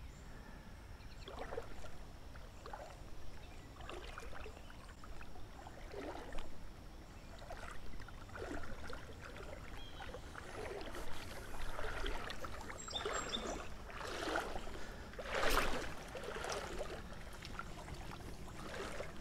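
Creek water splashing and sloshing now and then in short, irregular bouts, the loudest about three-quarters of the way through.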